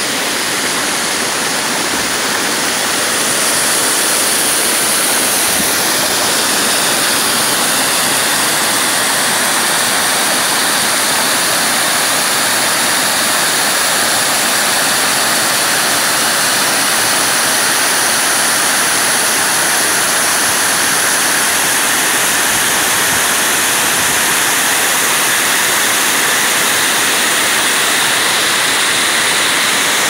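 Waterfall: a loud, steady rush of falling water, growing a little louder in the first few seconds.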